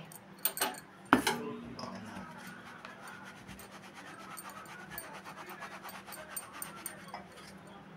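Gram flour being sifted through a hand sieve shaken over a bowl: a quick, even rhythm of soft rasping strokes, after a few sharp knocks at the start.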